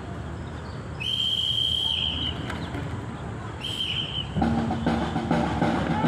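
A whistle blown twice as a signal: a long steady blast of about a second, then a shorter one. A steady low droning tone sets in near the end.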